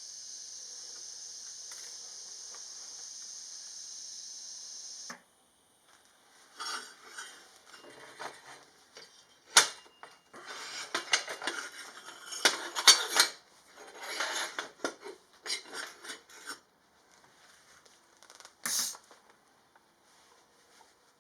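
A steady hiss that cuts off suddenly about five seconds in, followed by irregular metallic clinking and clattering as metal parts and tools are handled and set down, with a few sharper knocks.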